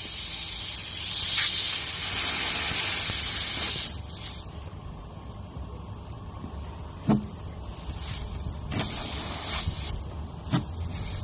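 Air hissing hard out of a tire through the hole left by a just-pulled nail, cutting off abruptly about four seconds in. A few light knocks follow.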